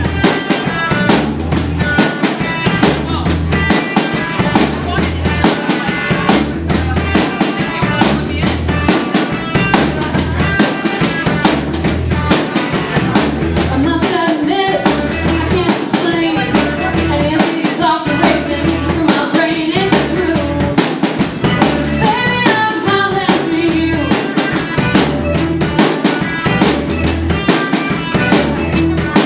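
Live rock band playing: a steady drum-kit beat with bass, keyboard, electric guitar and fiddle, and a young woman singing lead vocals.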